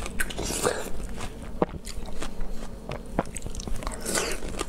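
Biting and chewing of a ripe yellow star fruit (carambola): a few sharp crunches scattered between the wet chewing.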